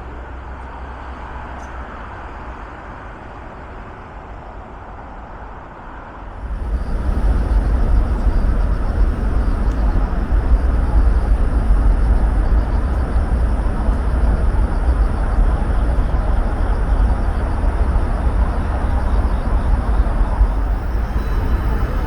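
Steady wind noise on the microphone during a bicycle ride, heaviest in the low rumble. It gets much louder about six seconds in and then stays steady.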